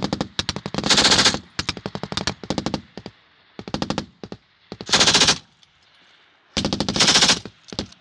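Loud machine-gun fire in bursts: three long bursts, about a second in, midway and near the end, with shorter strings of shots and single shots between.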